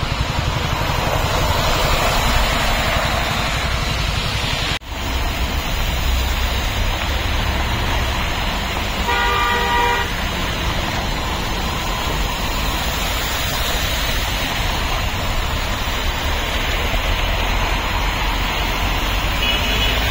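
Steady road traffic noise as cars and trucks drive through a flooded road, tyres running in water. A vehicle horn sounds for just under a second about nine seconds in, and a short faint beep comes near the end.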